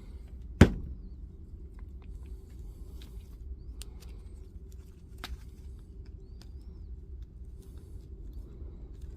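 A single sharp knock about half a second in, then scattered light clicks and taps over a steady low hum.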